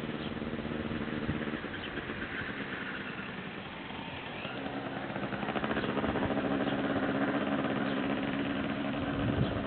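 Small moped engine running steadily, growing louder about halfway through as it comes closer.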